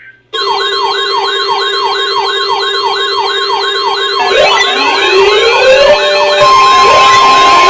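Electronic sirens start suddenly and loud: a fast yelp cycling about three to four times a second over a steady tone. About four seconds in, slower rising wails pile on and the sound gets louder, with a steady held tone joining near the end.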